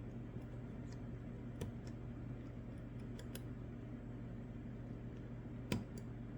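Scattered light clicks of a disc-detainer pick turning the discs inside an Anchor Lås disc-detainer padlock, about half a dozen, the loudest near the end, over a faint steady low hum.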